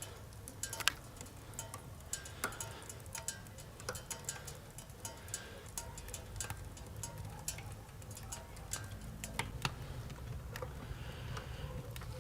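Firewood crackling with irregular sharp clicks and pops as it flares up inside a small wood-burning tent stove with its bottom draft vent fully open, over a faint low steady hum.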